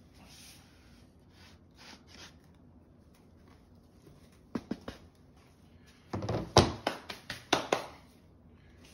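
Handling knocks from a curing tub and its lid: two light taps about four and a half seconds in, then a quick run of sharper knocks and clatters over the next two seconds.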